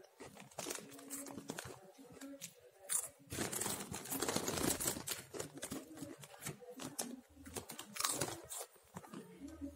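Close-up crunching and chewing of a crunchy packaged snack (Tak-a-Tak), with crackly crinkling of its plastic wrapper. The crackling is densest about three to five seconds in.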